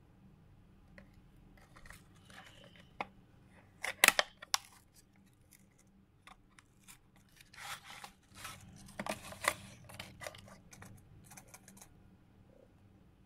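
A cardboard capsule box being opened by hand and a foil blister pack drawn out: scattered rustling, scraping and clicks of card and foil, with one sharp, loud click about four seconds in and a busier run of rustles in the second half.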